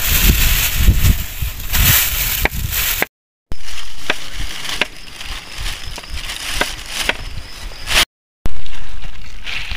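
Knife cutting raw potatoes into wedges on a wooden chopping board: a sharp knock each time the blade meets the board, about once a second, broken by two brief silent gaps.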